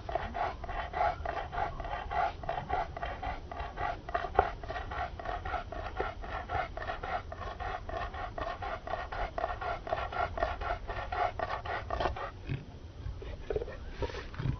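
Hard, rapid panting: short breaths in a quick, even rhythm that stop about twelve seconds in.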